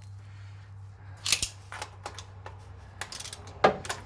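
Socket wrench ratcheting in short bursts of sharp metal clicks, the loudest near the end, as the oil filter adapter's fitting is snugged down.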